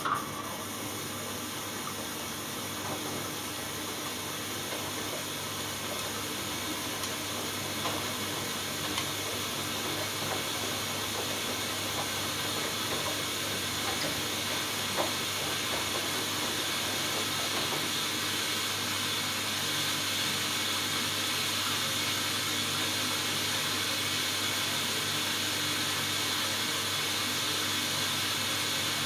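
Hoover Dynamic Next washing machine filling for its final rinse: water rushes in through the inlet valve and detergent drawer with a steady hiss. It starts suddenly and grows slightly louder, with a few faint ticks.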